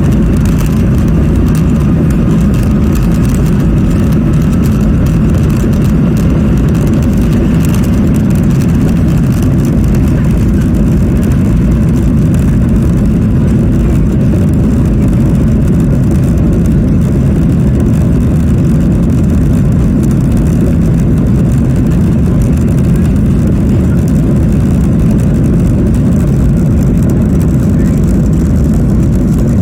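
Boeing 737-800's CFM56-7B jet engines at high thrust during takeoff and climb, heard from inside the passenger cabin: a loud, steady low rumble with a faint whine above it in the first few seconds.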